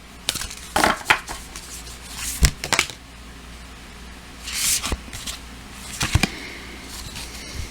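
A deck of oracle cards being shuffled and handled: quick slaps and riffles in the first three seconds, then a few scattered ones.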